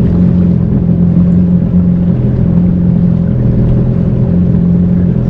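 Yamaha FX jet ski engine running steadily with a loud, even drone.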